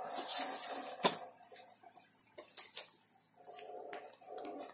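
Plastic sleeves of cross-stitch kits rustling and crinkling as one packet is pulled out of a pile and handled, with a sharp crackle about a second in and smaller crackles after.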